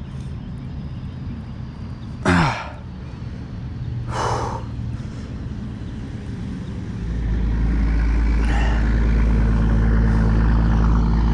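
A motor vehicle's engine drones, a steady low hum that grows much louder about seven seconds in. Two brief bursts of noise stand out, the first, a couple of seconds in, the loudest sound.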